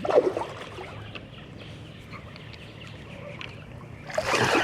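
Water sloshing against a paddleboard, with a louder splashing rush about four seconds in.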